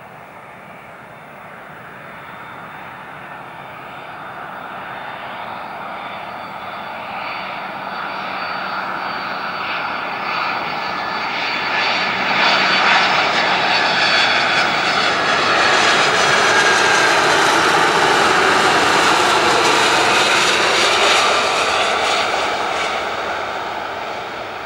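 Jet engines of a Boeing 767-300 airliner on landing approach, a noisy whine that grows steadily louder as the aircraft comes in low, stays at its loudest for several seconds, then fades near the end as it passes over the runway.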